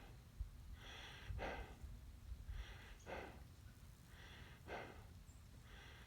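A man breathing heavily and slowly, four breaths in and out about a second and a half apart, winded from digging a post hole.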